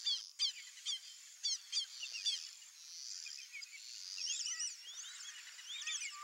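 Wetland birds calling: a chorus of high, quick whistled notes, with a few sharper, louder calls in the first two and a half seconds and a busier stretch near the end, over a steady high hiss.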